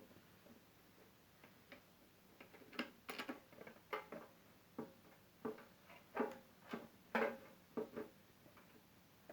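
Irregular sharp clicks and light knocks of a sandwich toaster's plastic and metal parts being handled and screwed back together during reassembly. There are about fifteen of them, a few a second, bunched between about three and eight seconds in.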